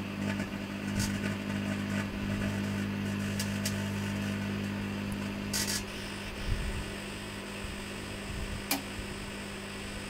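Microwave oven running with a steady electrical hum while a halogen reflector bulb heats inside, its glass reflector melting; a few sharp crackles and clicks, the loudest cluster about halfway through. The hum drops somewhat about six seconds in.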